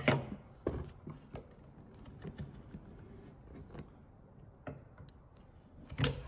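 A wood chisel paring small chips along a knifed shoulder line to form a trench for the saw: irregular light clicks and scrapes of steel on timber, with a louder knock near the end.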